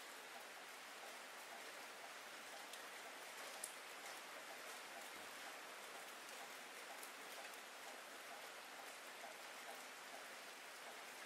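Rain falling steadily as a soft, even hiss, with scattered small ticks of single drops and one sharper drop about a third of the way in.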